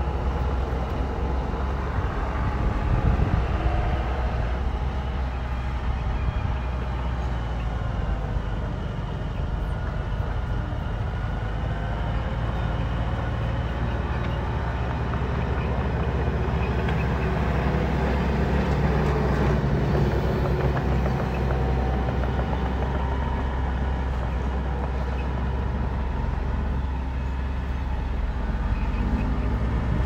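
Diesel engines of a mini bulldozer and dump trucks running steadily at earthmoving work, the engine note swelling briefly about two-thirds of the way through.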